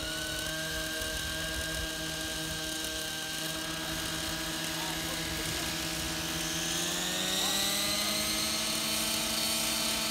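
Radio-controlled model helicopter's engine running with a steady whine while on the ground, then rising in pitch about seven seconds in as it spools up the rotor.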